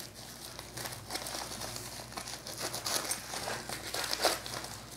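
Plastic parcel wrapping crinkling and rustling in small, irregular crackles as it is handled and picked at with a utility knife, with one louder crackle near the end.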